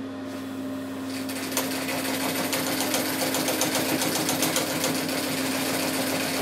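Singer semi-industrial sewing machine humming, then about a second in starting to stitch, its needle running in a fast, even clatter. It is sewing nylon webbing with heavy Tex 92 thread and a size 20 needle.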